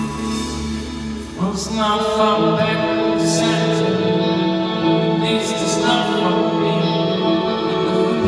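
Live soft-rock band playing, a man singing lead over electric guitar and drums; the voice comes in about a second and a half in over sustained chords, with cymbal strokes keeping time.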